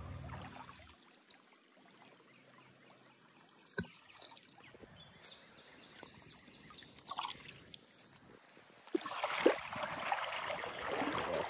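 Water trickling, faint at first with a single sharp knock about four seconds in, then louder from about nine seconds on.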